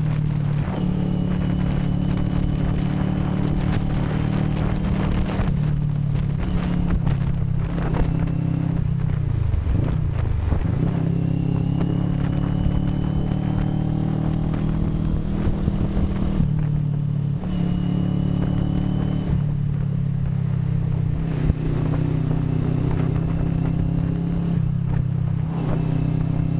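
CFMoto 400NK motorcycle's parallel-twin engine running steadily on the road. About ten seconds in its pitch drops low and climbs back up.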